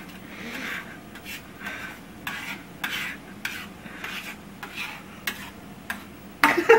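A utensil stirring and scraping a runny scramble of egg yolks and chicken stock around a stainless-steel frying pan, in short strokes repeated steadily, one or two a second.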